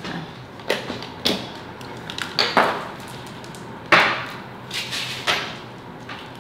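A handful of sharp knocks and clatters, about five in all, each trailing off briefly, the loudest about four seconds in.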